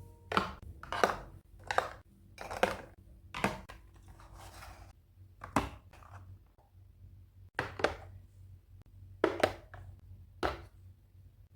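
A series of separate sharp knocks at uneven spacing, roughly one a second, with a softer rustling or scraping noise about four to five seconds in.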